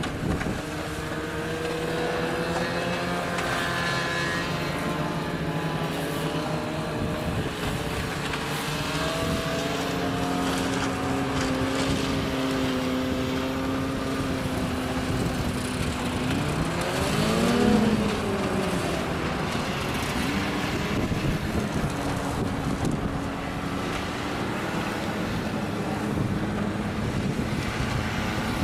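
Many snowmobile engines running together at low speed as a column of sleds passes, several steady engine notes overlapping. A little over halfway through, one sled's engine rises and then falls in pitch, the loudest moment.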